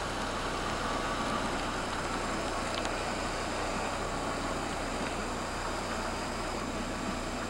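White stretch limousine running slowly past: a steady mix of engine and tyre noise with no sudden changes.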